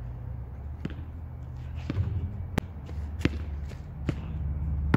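Basketball bouncing on an outdoor asphalt court: about five sharp, unevenly spaced bounces over a steady low rumble.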